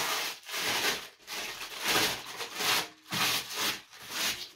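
Baking paper being pressed and smoothed into a metal baking tray by hand, rustling and rubbing in about six uneven strokes.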